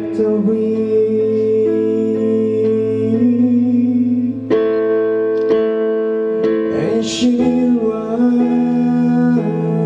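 Live pop song: a male voice singing over held chords on a Kurzweil PC88 keyboard, with guitar accompaniment. The chords change every few seconds.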